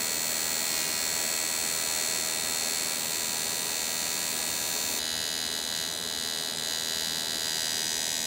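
AC TIG welding arc on aluminium, a steady electric buzz held without a break while the bead is laid.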